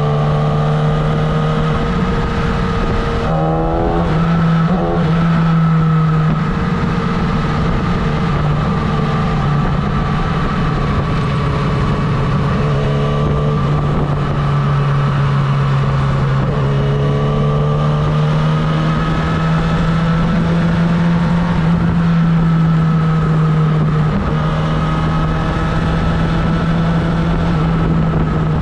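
Yamaha R6 inline-four sport bike engine running at a steady cruising pitch under way, with the revs rising briefly a few times, over a steady hiss of wind and road noise.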